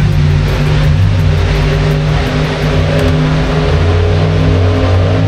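Powerboat racing engine running loud, its pitch stepping up and down as the revs change.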